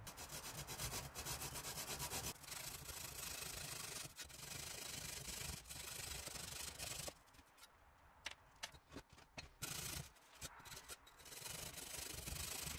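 Handsaw cutting a diagonal groove into a soft fire brick: a dry, gritty rasping of quick back-and-forth strokes. The sawing stops about seven seconds in, leaving a few light knocks, and starts again near the end.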